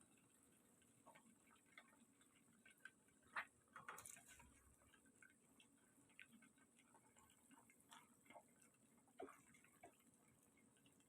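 Near silence: room tone with faint, irregular clicks and ticks, a few slightly louder about three and four seconds in.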